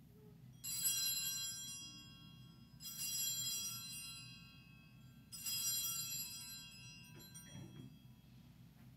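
Altar bells rung three times, about two and a half seconds apart, each ring fading over a couple of seconds: the bells marking the elevation of the chalice at the consecration.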